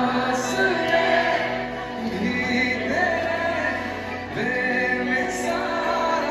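Live band music with singing: sung melody over guitars and a held bass note that changes about every two seconds.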